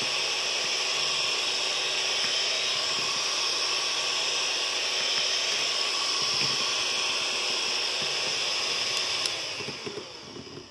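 Electric hand mixer running on its second speed, its beaters whipping cream in a steel bowl with a steady whir. The motor winds down and stops near the end.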